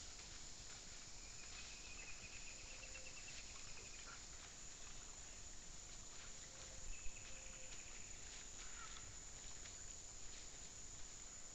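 Faint forest ambience from a trail camera under a steady hiss: a thin high trill sounds twice, each a couple of seconds long, with faint scattered ticks and one sharp tap about seven seconds in.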